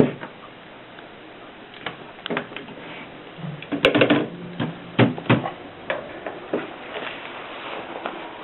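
Antique Mercedes typewriter clicking and clacking at an irregular pace as its mechanism is worked, with a cluster of louder clacks about halfway through.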